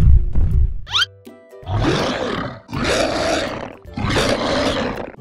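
Music with a few heavy drum hits, then a quick rising whistle about a second in, followed by three long monster-roar sound effects of about a second each.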